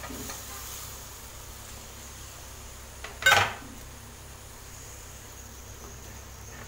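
A metal spoon clanks once against an aluminium kadai about three seconds in, ringing briefly. A steady low hum runs underneath.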